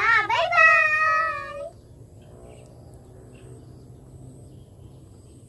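Young girls' high voices singing a short line, ending on a long drawn-out note about a second and a half in, after which only a faint low hum remains.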